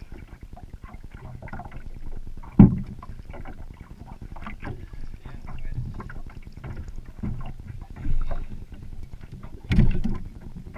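Knocks and clunks of gear being handled in a small aluminum fishing boat, with a sharp knock about two and a half seconds in and another near the end, over a steady low background noise.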